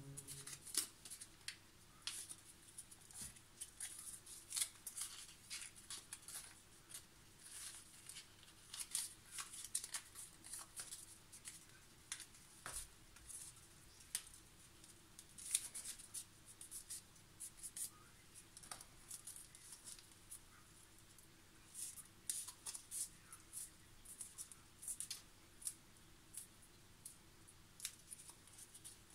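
Origami paper crinkling and rustling in the hands as a green sheet is rolled and twisted into a rose stem: faint, irregular crackles.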